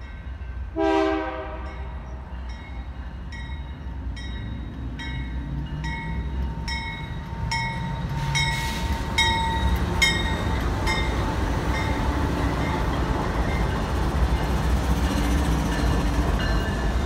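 Freight train led by GE diesel locomotives approaching and passing close by, the engines and wheels rumbling louder as they draw level. A grade-crossing bell dings about twice a second, and a short horn note sounds about a second in.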